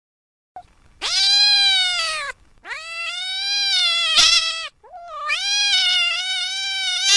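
A cat meowing: three long, drawn-out meows, the first starting about a second in, the last still going at the end.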